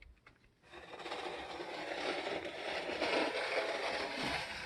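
Sliding door being opened, rolling along its track with a steady scraping rumble that starts about a second in and runs for about four seconds.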